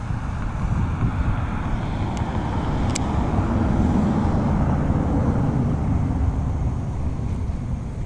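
Wind buffeting the microphone: a steady low rumble with a couple of faint clicks.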